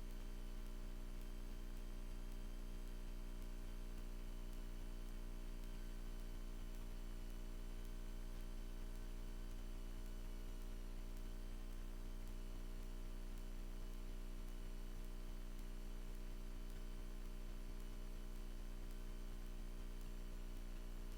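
Cessna 172's piston engine at idle after touchdown, a steady low hum made of several even tones that does not change.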